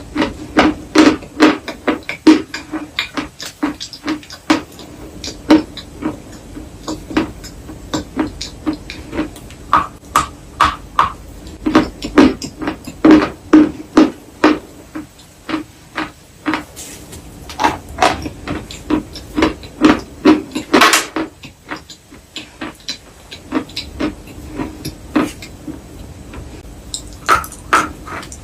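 Chalk and clay being crunched up close: a long run of sharp, crisp crunches, several a second, coming in uneven clusters with short lulls between.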